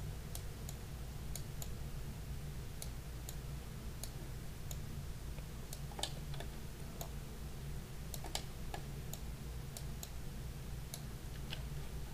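Irregular, scattered clicks of a computer mouse and keyboard, with a steady low hum underneath.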